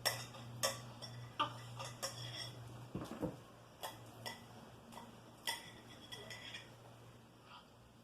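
A spoon clinking and scraping against a plate while slime is mixed and salt is added: about a dozen irregular sharp taps, with a duller knock about three seconds in.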